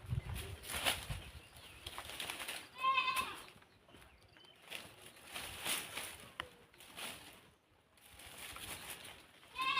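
Goat bleating twice, short wavering calls about three seconds in and again near the end, over intermittent rustling and crackling.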